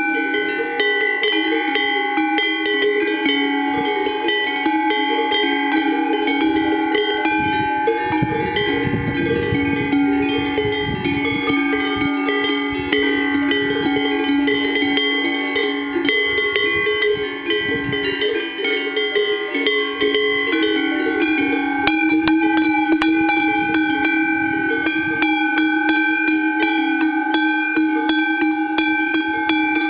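Bells worn by a herd of cows ringing together: many clanging bells of different pitches overlapping in a continuous jangle.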